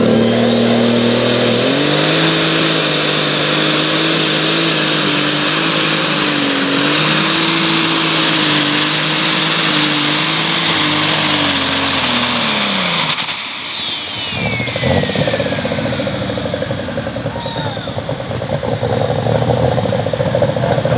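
Turbocharged Case IH light super stock pulling tractor at full throttle, dragging a weight-transfer sled. About two seconds in the engine comes up to high revs with a high turbo whine, which holds steady for about ten seconds. Then the throttle drops off, the whine falls away as the tractor stops, and the engine runs on at low speed.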